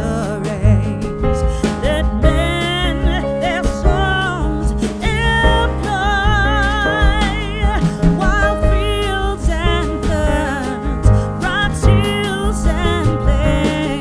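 Background music: a song with a singing voice that wavers in pitch, over a steady beat and accompanying instruments.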